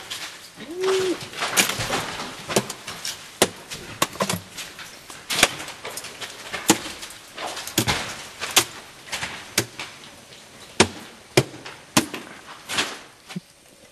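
Ice climbing tools and crampon points striking and scraping on rock and ice during a mixed climb: a run of sharp, irregular clicks and knocks, one or two a second.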